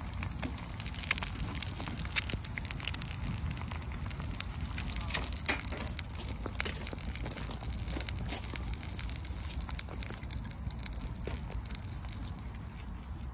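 Fried eggs sizzling in hot oil in a cast-iron skillet, a dense crackle of small pops and hiss that thins out near the end.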